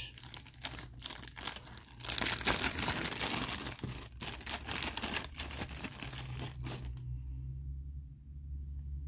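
Thin clear plastic bag crinkling and crackling as it is pulled open and the miniature is worked out of it. The crinkling stops abruptly about seven seconds in.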